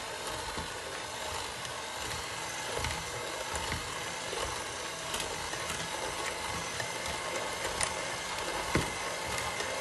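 Electric hand mixer running steadily with its spiral hooks in a plastic bowl, working butter, flour, sugar and cinnamon into streusel crumbs. A few light knocks sound through the steady hum.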